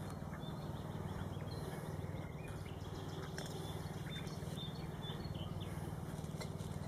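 Riverside outdoor ambience: a steady low hum with scattered faint, short bird chirps and ticks.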